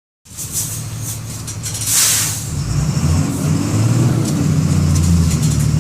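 MWM 6.12 TCE six-cylinder inline turbo diesel engine of a Volksbus 17-230 EOD bus running. About two seconds in there is a short loud hiss of air, then the engine note rises and grows louder as the bus accelerates.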